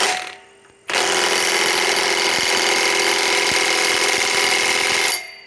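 RIDGID R86212 high-torque cordless impact wrench tightening a large 1 7/8-inch nut. A short burst at the start, then about four seconds of steady hammering that winds down near the end.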